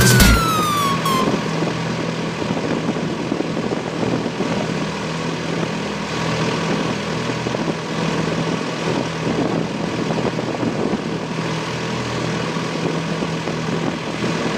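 Fishing boat's engine running steadily, a constant drone with a low hum under a hiss of wind and sea.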